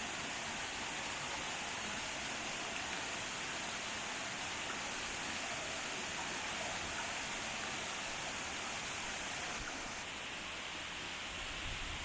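A waterfall: water falling steadily onto rocks, a constant rushing hiss with no change in rhythm. The sound shifts slightly in tone about ten seconds in.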